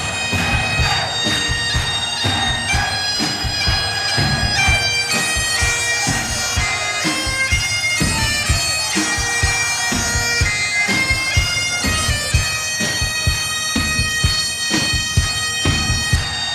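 Bagpipes playing a tune over their steady drone, with a drum beating underneath.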